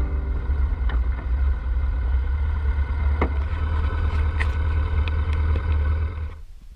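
BMW R1200 GSA boxer-twin motorcycle riding along at steady speed, a heavy low rumble of engine and road noise with scattered sharp clicks. The sound drops away abruptly near the end.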